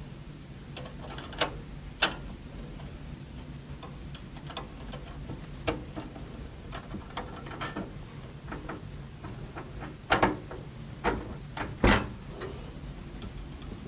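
Scattered light clicks and knocks of parts being handled in a PC case while the expansion-slot setup is moved to the top slot, with sharper knocks about two seconds in and twice near the end, over a steady low hum.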